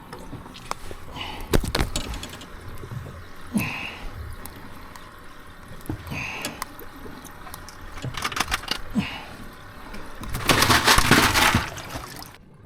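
Water sloshing and splashing aboard a fishing boat, with scattered knocks and clatter. A louder stretch of rushing splash comes near the end and cuts off suddenly.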